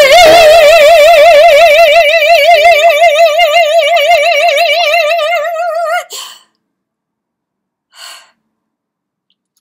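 A woman's singing voice holding one high note with wide vibrato for about six seconds, then cutting off. About two seconds later there is a short, soft breath.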